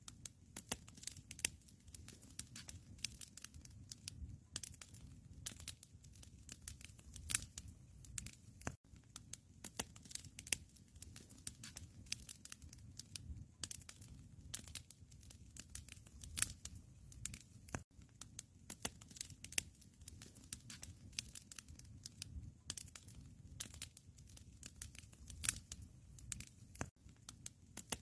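Wood fire crackling in a fireplace: irregular sharp pops and snaps over a low rumble.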